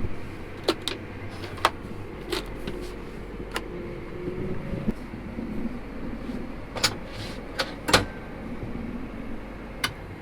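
Steady low vehicle rumble heard from inside the cab, with scattered sharp clicks and knocks, about ten over the span.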